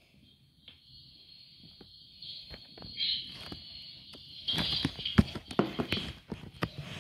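A plastic toy elephant knocking and tapping against a tablet and its case: a rapid, irregular run of clicks and knocks from about halfway through, the loudest a little after that.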